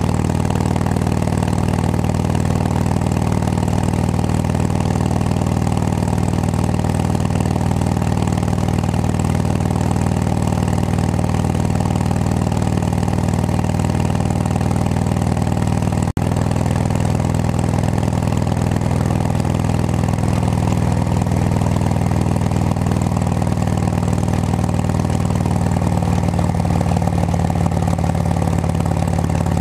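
2006 Harley-Davidson Road King Classic's V-twin engine running steadily at cruising speed through aftermarket Cycle Shack pipes, heard from a helmet-mounted microphone.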